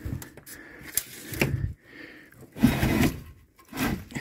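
Old car wheels and tyres being pulled and shifted among clutter on a wooden attic floor: a series of knocks and scrapes, about four in all. The loudest is a half-second scrape and thump about two and a half seconds in.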